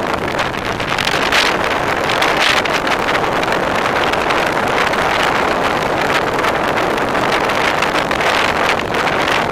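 Steady wind rush buffeting the microphone of a camera on a moving bicycle, a loud even noise that swells a little a couple of times.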